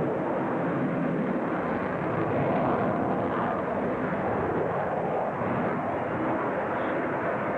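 Twin-engine F-14 Tomcat jet fighter flying a tight banking turn, its engines making a steady, dense jet noise with no break.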